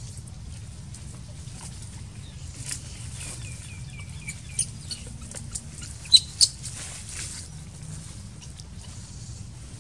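Outdoor ambience with a steady low rumble. About three seconds in comes a quick run of short high chirps, and just after six seconds two sharp, louder high chirps, from a small animal.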